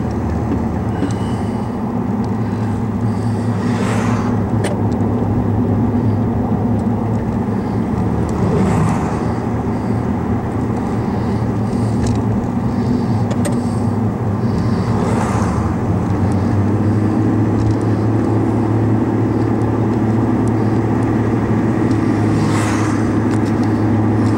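Car engine and tyre noise heard from inside the cabin while driving, a steady low drone whose pitch rises slightly about two-thirds of the way through. A brief rush of noise comes every few seconds.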